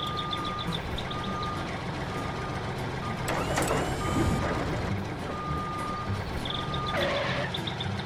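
Vehicle reversing alarm beeping about once a second over a low engine rumble as the tractor backs its trailer up, with a brief hiss a little after three seconds.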